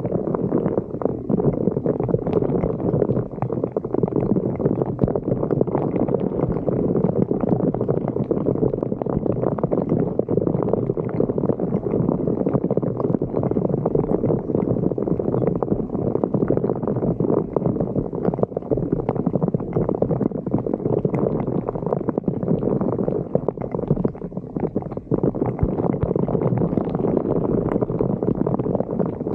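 Floodwater gurgling and churning steadily down a street drain.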